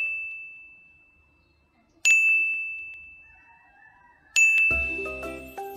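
A bright, single-pitched ding, struck three times about two seconds apart, each ringing and slowly fading. About four and a half seconds in, a short light tune with a bass line starts under it.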